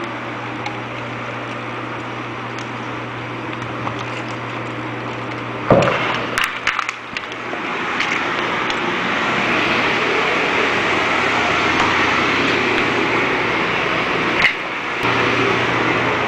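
Steady mechanical hum and fan-like rushing noise. A sharp knock comes about six seconds in, after which the hum drops away and the hiss turns brighter. Another knock comes near the end, and the hum returns.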